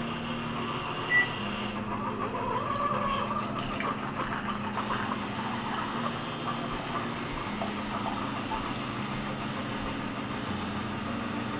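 Single-serve pod coffee maker brewing: its pump hums steadily while hot coffee streams and sputters into a glass mug. A short high blip sounds about a second in.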